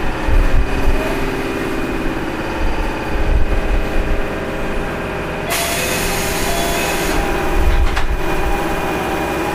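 Running sound inside a Keio 7000-series field-chopper electric train: wheels rumbling on the rails with steady machine tones from under the floor. A loud hiss starts suddenly a little past halfway and lasts about a second and a half.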